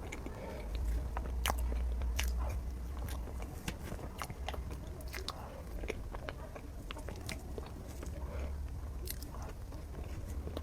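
Close-miked eating of a chocolate lava layer cake: chewing with many irregular wet mouth clicks and smacks, over a low steady hum.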